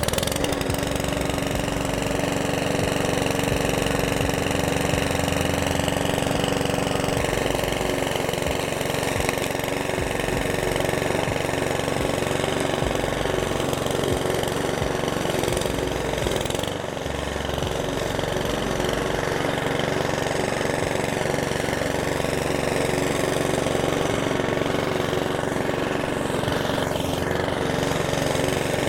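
Mountfield lawn mower's four-stroke petrol engine running steadily just after starting. With its valve clearances freshly reset, it keeps running instead of stalling.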